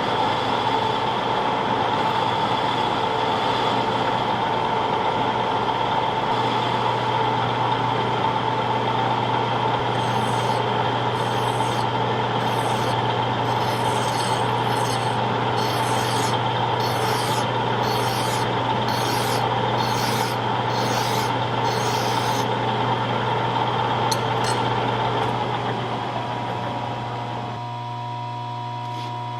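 Electric grinder grinding steel, a steady whine with a harsh rasp that comes and goes about once a second through the middle, then winding down gradually near the end.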